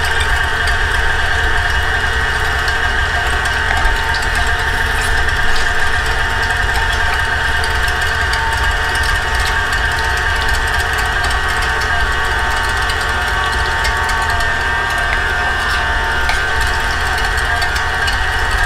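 KitchenAid stand mixer motor running steadily with a Kenome meat grinder attachment, grinding chunks of venison as they are pressed down the feed tube: a constant whirring hum.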